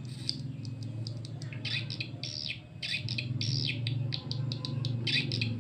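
Recorded swiftlet call played through two AX65 horn tweeters: a run of short, falling chirps with quick clicks between them, over a steady low hum.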